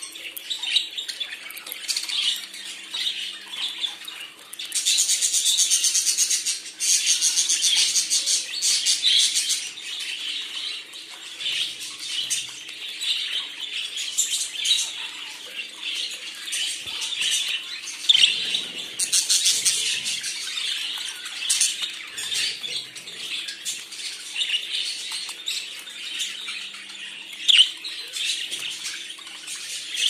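Pet budgerigars chattering in their cage: a continuous stream of high chirps, squawks and warbling, with a few louder, dense buzzy stretches.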